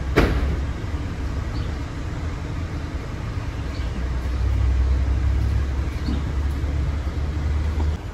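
Low steady rumble of a parked van idling, stronger in the second half, with one sharp clunk just after the start as the rear seat hardware is handled.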